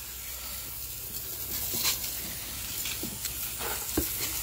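Garden hose spray nozzle hissing as water sprays onto a wooden deck, wetting everything down to dilute soft-wash roof-cleaning runoff. A few light knocks come near the end.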